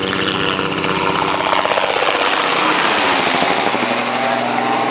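Light helicopter flying low and passing overhead: rapid rotor chopping over its engine whine, with the pitch sliding down about midway as it goes by.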